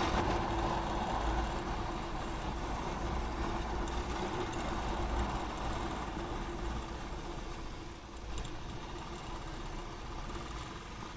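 Royal Enfield motorcycle engine running under the rider's action camera, with wind and road noise. It grows gradually quieter as the bike slows.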